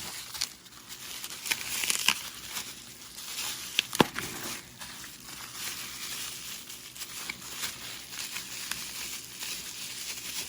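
Plastic packaging crinkling and rustling as a toy is unwrapped, with scattered irregular clicks and one sharp knock about four seconds in.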